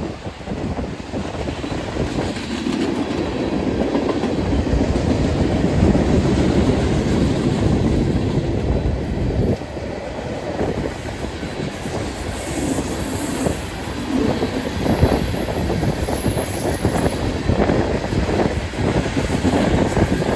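CSX manifest freight train rolling past, its freight cars rumbling and the wheels clacking irregularly over the rail joints, with a thin high wheel squeal partway through.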